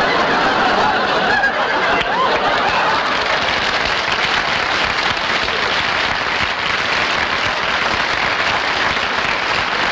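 Studio audience laughing, the laughter giving way after a few seconds to steady applause.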